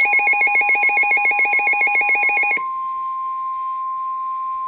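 Emergency Alert System alert tones: a loud, rapidly pulsing electronic ringing tone cuts off about two and a half seconds in and gives way to one steady high tone, the weather-radio warning alarm tone that comes before a spoken warning.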